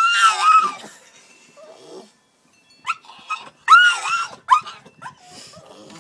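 Staffordshire bull terrier puppy crying at being shut outside: high-pitched cries that rise and fall. The first comes at the start, a short one about three seconds in, and the loudest about four seconds in.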